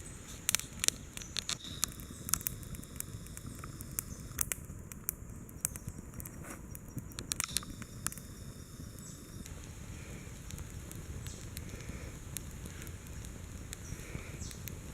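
A small wood campfire of sticks bound with wire burning, with irregular crackles and pops over a low steady rush.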